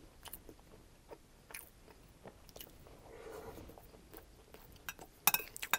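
Soft close-miked chewing of crispy chicken fried rice, with scattered small mouth clicks. Near the end come a few sharper clicks of a metal spoon against the glass bowl.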